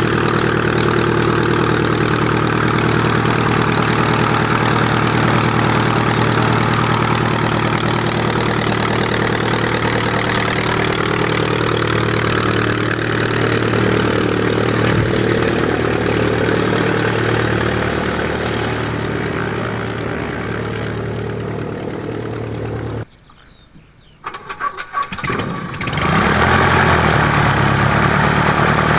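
Light aircraft's piston engine running steadily. About 23 seconds in the sound drops away for a moment, comes back in a few uneven bursts, then the engine runs steadily again, louder than before.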